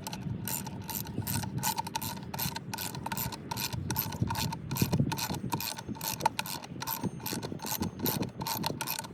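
Steady run of ratchet clicks, about five a second, a pawl clicking over a toothed wheel.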